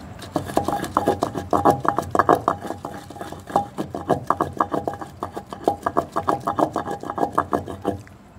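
Wooden pestle pounding soaked poppy seeds and raisins in an unglazed clay mortar: a fast, even run of dull knocks, several a second, stopping shortly before the end.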